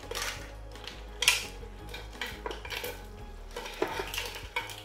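A serving spoon scraping and clinking against a ceramic tray while crab pieces and mussel shells are scooped into a pot, with scattered clacks of shell on shell; one louder knock a little over a second in.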